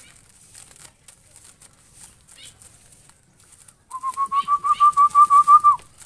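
Zebra dove calling: a quick run of about a dozen short notes on one clear pitch, rising slightly and lasting about two seconds, starting about four seconds in.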